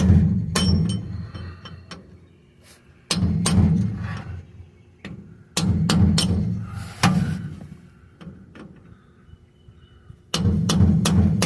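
Hammer blows on a steel punch driving a bearing race out of a differential carrier: groups of several quick ringing metal strikes every few seconds.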